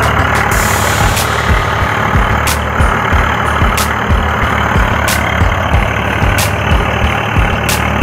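Tractor engine running steadily with a low, even throb, and a light click recurring about every second and a quarter.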